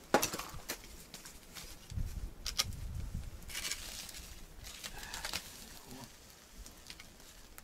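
Campfire logs being turned over and shifted: several short wooden knocks and clatters, with a low rumble about two to three seconds in.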